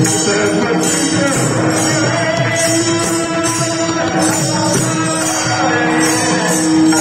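Devotional singing over a held drone note, with jingling percussion striking in a steady beat a little more than once a second.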